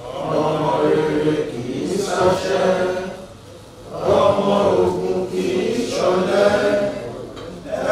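A group of people singing together in unison, in long phrases of a few seconds with a short break between them.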